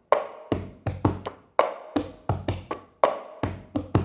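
Cup-rhythm game on a tabletop: hands slapping the table and a hard plastic cup knocked and set down on it, in a repeating pattern of about five strikes every second and a half.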